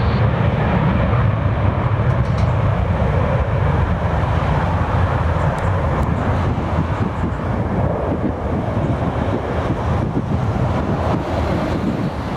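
Airbus A330-300 airliner on its takeoff roll, its two GE CF6-80E1 turbofan engines at takeoff thrust: loud, steady jet noise with a deep rumble, easing slightly near the end as the aircraft rolls past and away.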